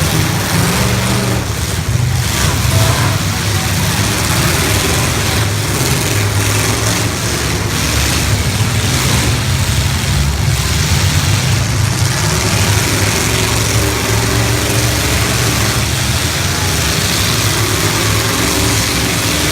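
Engines of several stock full-size demolition derby cars running and revving under load, a loud, steady din.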